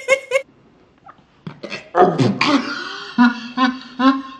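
A woman laughing hard: a few short laughs, a brief pause, then a loud burst about two seconds in that breaks into a string of rhythmic ha-ha pulses.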